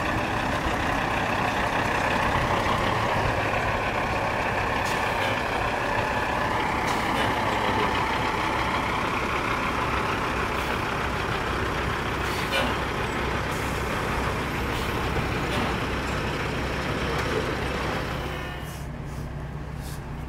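Heavy diesel dump truck engine running steadily, its sound dropping off noticeably near the end.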